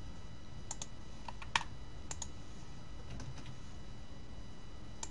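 Scattered clicks of a computer keyboard and mouse, about a dozen short separate clicks with the sharpest about a second and a half in, over a steady low background hum.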